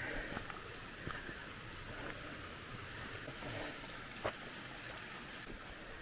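Steady rushing of a mountain stream, with a few taps and scuffs of footsteps on a stony trail.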